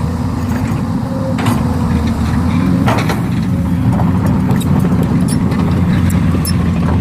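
Heavy machinery engine running steadily, with a few sharp knocks about one and a half and three seconds in.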